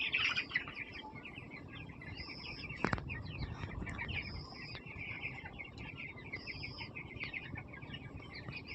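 A flock of chickens, mostly chicks, peeping constantly in many overlapping high chirps, with a flat high note that repeats about every two seconds. A burst of louder calls comes at the very start, and a single knock about three seconds in.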